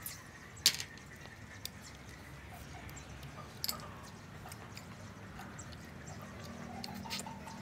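Quiet eating: a few small sharp clicks, the clearest about a second in and near the middle, as cooked river snails are picked out of their shells with a toothpick over a plate and eaten.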